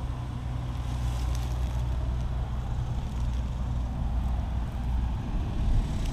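Steady low rumble, with wind buffeting the microphone.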